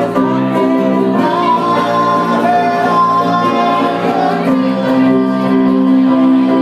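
Live band playing with an electric guitar and a singer, a wavering vocal line over sustained chords.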